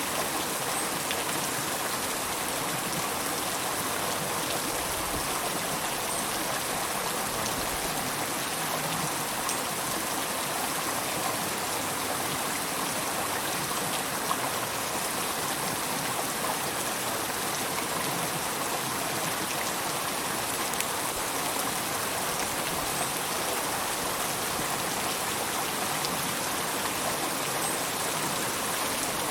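River water flowing steadily, an even rushing hiss with no let-up.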